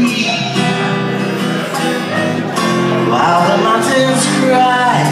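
Guitar strummed in a slow ballad, with male singing over it in the second half.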